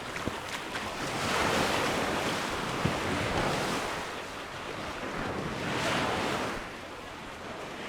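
Mediterranean waves washing onto a sandy beach, the surf swelling and falling back several times, with some wind buffeting the microphone.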